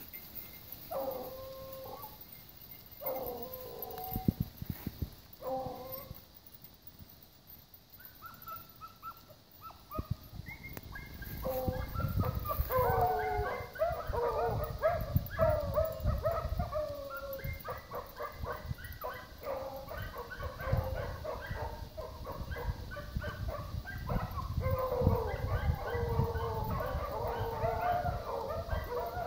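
A pack of beagles baying on a rabbit's scent trail. A single hound bays a few times at first, more join in around eight seconds, and from about eleven seconds in the pack gives tongue together in a loud overlapping chorus.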